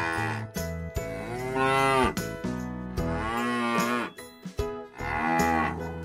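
Cattle mooing, about four drawn-out calls each roughly a second long, rising and then falling in pitch.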